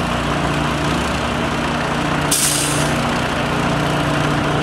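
Engine running steadily at an even pitch. A short, sharp hiss cuts in a little past halfway and lasts about half a second.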